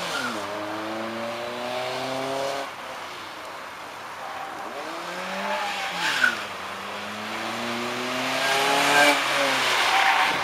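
VW Lupo engine pulling hard through a slalom. The revs climb for about three seconds, drop, rise and fall briefly, then climb again for about three seconds and fall near the end. Tyres squeal in the turns, loudest about six seconds in and near the end.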